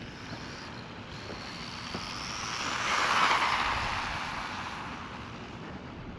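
Brushless-converted Maverick DOHA RC truck (Hobbywing 2435 4500KV brushless motor) driving past at speed: motor whine and tyre noise on asphalt swell to a peak about three seconds in, then fade as it runs away.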